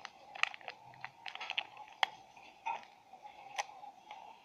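Irregular crackles and clicks as the paper seal is peeled off a Kinder Joy toy capsule and the plastic capsule and wrapped toy inside are handled, over a faint steady hum.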